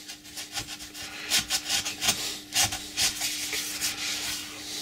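Cotton rag rubbing over the metal compound slide of a Colchester lathe, wiping off oily grime in a run of quick, uneven strokes that are busiest in the middle.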